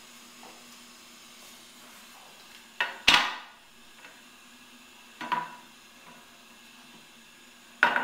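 Ceramic toilet tank lid being set back onto the tank: sharp china-on-china clunks, each with a brief ring. Two come close together about three seconds in, the second the loudest, another comes about two seconds later, and a last one near the end.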